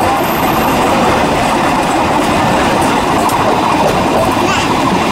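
Diaz Express tourist train running along the track, heard from aboard the moving carriage: a loud, steady noise of wheels rolling on the rails.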